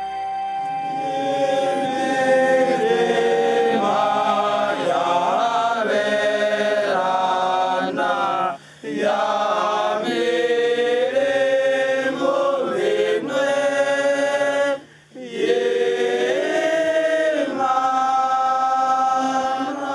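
A choir singing a slow chant in several voices, phrase by phrase, with two short breaks between phrases, about 8.5 and 15 seconds in.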